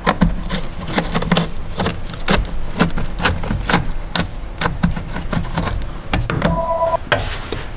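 Rapid, irregular metal clicks and knocks of an 8 mm socket on a long extension working the screw of a worm-gear hose clamp on the air intake tube. A short squeak comes near the end.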